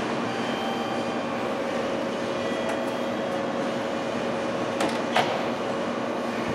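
Steady electrical hum of a JR Kyushu 813 series electric train standing at the platform, with two sharp clicks close together about five seconds in.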